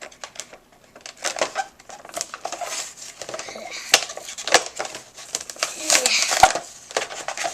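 Plastic and cardboard toy packaging being pried and torn open by hand: irregular crinkling rustles and sharp little clicks, with the loudest snaps about four and six seconds in.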